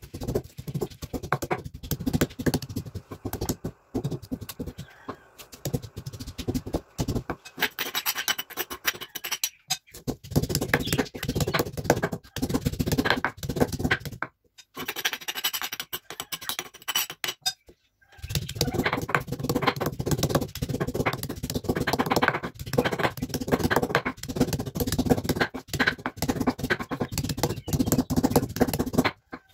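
Stone pestle (ulekan) crushing and grinding shallots, garlic and turmeric on a flat stone mortar (cobek): rapid, rough pounding and scraping strokes, broken by a few short pauses.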